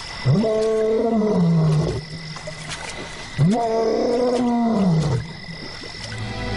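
Male lion roaring: two long calls, each rising and then falling in pitch, with a third starting at the very end, over a steady high-pitched background tone. This is a contact roar, a lone male calling out to locate his missing brother.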